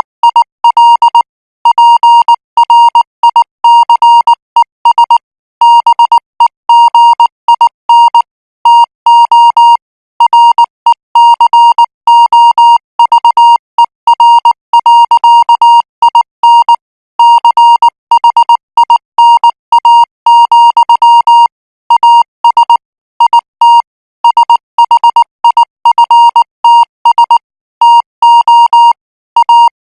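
Morse code practice signal: a single steady beep keyed on and off in short dots and longer dashes at 18 words per minute, with brief gaps between letters and words.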